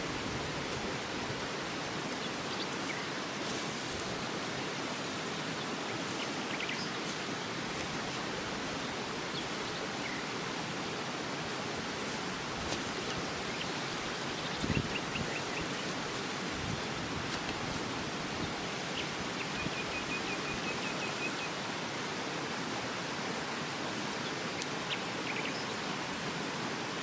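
Steady rushing of a nearby stream, with a few faint, short bird chirps and trills over it and an occasional light knock.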